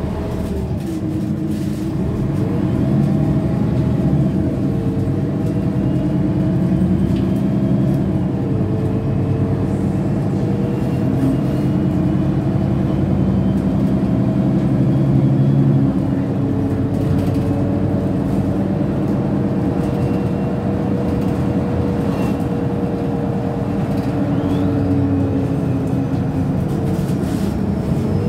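City bus heard from inside while under way: its engine and drivetrain running with a steady hum, and a whining tone that shifts in pitch several times as the bus changes speed.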